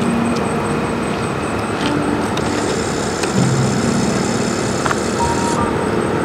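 Steady road and wind noise of a vehicle on the move.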